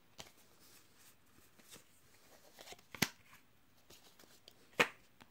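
Yu-Gi-Oh! trading cards being handled between packs, with a few light, sharp clicks of card against card, the two loudest about three and five seconds in.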